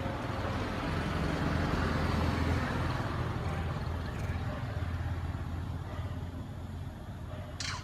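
A motor vehicle's engine running close by, swelling about two seconds in and then slowly fading as it passes. A short high squeak just before the end.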